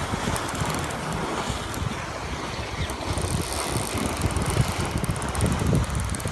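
Wind rumbling on the microphone, with a rapid high clicking from a Shimano SW saltwater spinning reel that starts thin and thickens from about three seconds in, while a hooked fish is being played.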